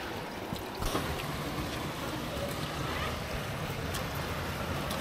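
Steady rush of a stream running through a narrow rock gorge, with wind buffeting the microphone and a few faint footsteps on wet stone steps.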